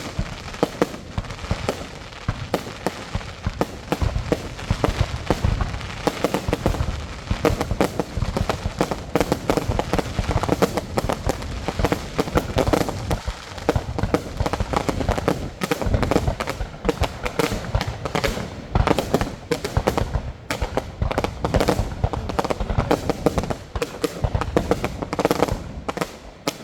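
Aerial fireworks going off in a dense, unbroken run of overlapping bangs and crackles.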